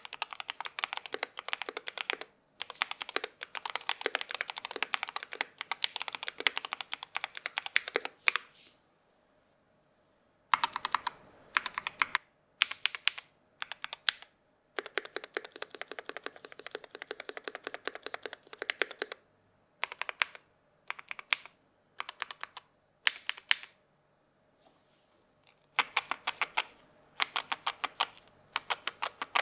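Typing on a Keychron K2 HE keyboard with magnetic switches: runs of fast, clacking keystrokes broken by short pauses. A two-second pause comes about a third of the way in, followed by scattered single key presses between the later runs.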